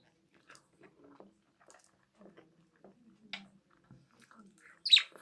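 Close-up eating sounds: a person chewing and biting soft food, with small wet mouth noises. One short, sharp, high-pitched sound cuts in near the end.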